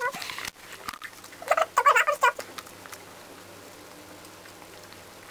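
Cat giving a bunch of short, wavering meows about one and a half to two and a half seconds in, then only faint background hiss.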